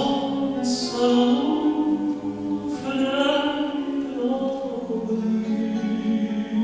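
A man singing a Russian song in long, held lines, accompanied by a nylon-string classical guitar.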